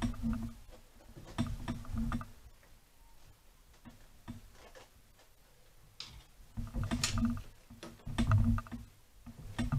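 Irregular clicking and rubbing in several short bouts as a rubber carburettor inlet boot and its clamp are pushed and worked by hand onto a Honda CBR400's cylinder-head inlet stub.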